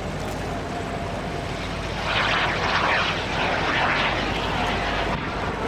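Jet engine of a jet-powered glider running as it climbs past, a steady rushing noise that grows louder about two seconds in.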